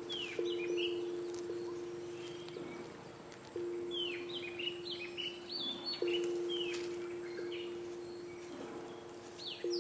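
Birds chirping with short, quick, downward-sweeping calls. A low two-note ringing tone sounds about every three seconds and fades slowly between strikes.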